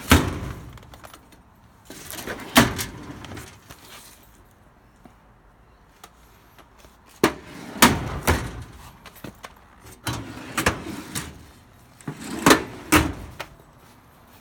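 Repeated knocks and bangs of furniture being handled, such as drawers and doors being opened and shut: about five clusters of sharp impacts a few seconds apart.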